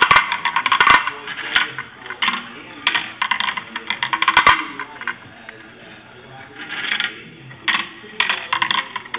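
Glass marbles rolling and clattering through a plastic marble run: rapid clicks and rattles in spells, with a quieter stretch a little past the middle.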